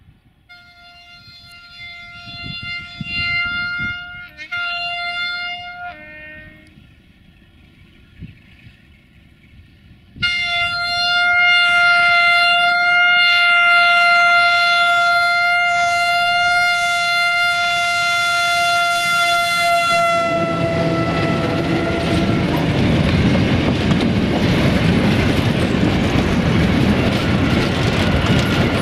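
LDE2100 (class 060-DA) diesel-electric locomotive with its Sulzer diesel engine, sounding its single-note horn as it approaches: two blasts, then one long blast of about ten seconds as it comes close. After that, the freight wagons' wheels clatter steadily over the rail joints as the train passes close by.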